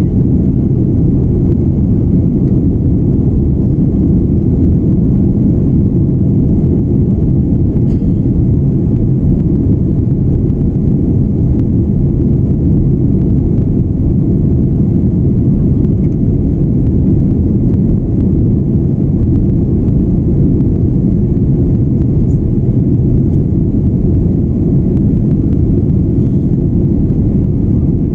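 Jet airliner heard from inside the cabin: a steady, loud rumble of engines and airflow that stays even throughout, with no rise or fall in power.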